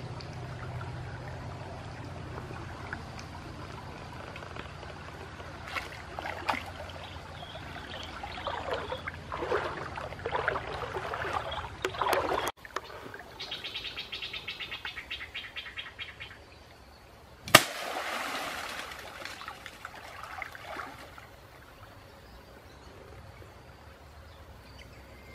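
Water sloshing and splashing in several bouts as a long wooden pole is jabbed and swept through a shallow, muddy stream along the bank. Partway through, a rapid, evenly pulsed chirring runs for a few seconds, followed by a single sharp click and more splashing.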